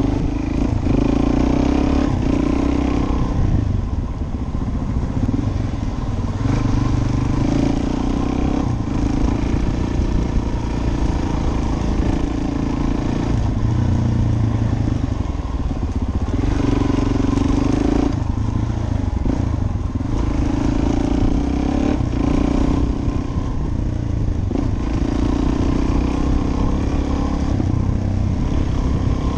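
Suzuki DR-Z400S single-cylinder four-stroke engine running under way on a dirt track, its revs rising and falling every few seconds as the rider works the throttle and gears.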